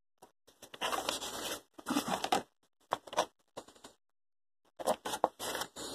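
Clear plastic container handled right up against the phone's microphone: rustling and scraping of plastic in four short bursts, with brief silences between.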